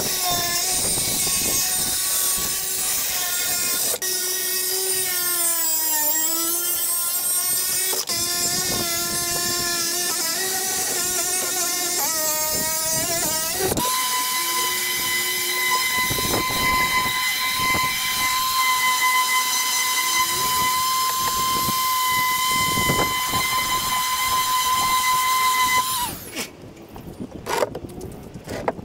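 Circular saw trimming plywood, its motor whine dipping in pitch under load and recovering, in a few short stretches. About fourteen seconds in, a random orbital sander running on plywood takes over with a steady high whine, then stops near the end, leaving a few light knocks.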